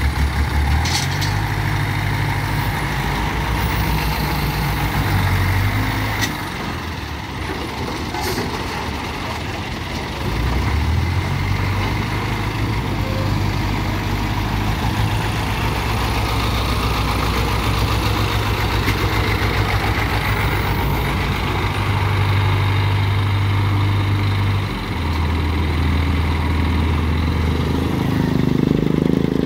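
Diesel engine of a Hydra mobile crane running, its revs rising and falling in steps as the crane moves. The engine drops back for a few seconds about six seconds in and picks up again around ten seconds.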